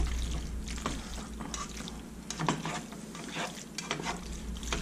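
Spatula stirring and turning noodles in meat sauce in a frying pan: wet, sticky squelches with irregular light clicks of the spatula against the pan.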